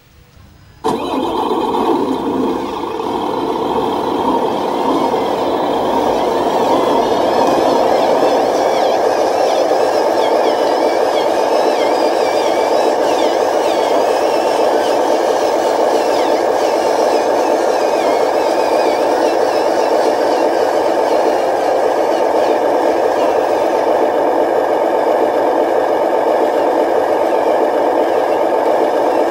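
Remote-control scale dump truck running: a loud, steady engine-like drone starts suddenly about a second in and keeps going, with a higher whine that wavers in pitch as the truck drives.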